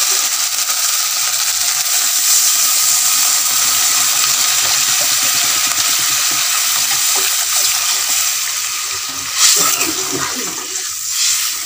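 Water poured in a steady stream into a kadai of fried masala paste, splashing as it thins the spices into a gravy, with a spatula stirring the pan near the end.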